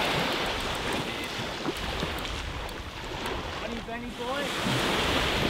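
Steady rushing of wind on the microphone and waves on the shore, with a faint voice about four seconds in.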